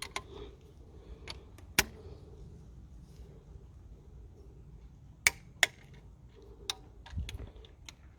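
Scattered sharp metallic clicks and clinks from a torque wrench and socket being fitted to and worked on the injector clamp bolts, with the loudest pair of clicks about five seconds in.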